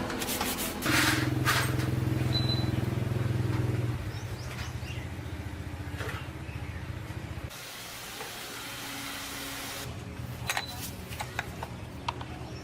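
Old chainsaw's small two-stroke engine running steadily at a higher speed, dropping to a lower, quieter idle about four seconds in, and stopping about seven and a half seconds in. Faint clicks and knocks follow near the end.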